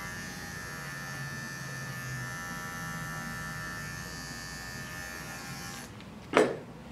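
Wahl Bravura cordless pet clipper running steadily with a buzzing hum while trimming the hair around a dog's eyes, switching off a little before the end; a short sharp noise follows about half a second later.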